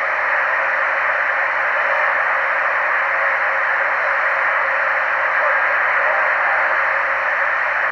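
Steady static hiss from a CB radio's speaker, an even rush with no voice on the channel.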